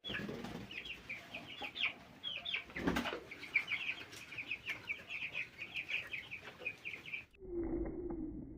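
A pen of young broiler chickens peeping continuously, many short high calls overlapping, with a brief louder rustle about three seconds in. About seven seconds in the peeping cuts off and gives way to a low steady drone.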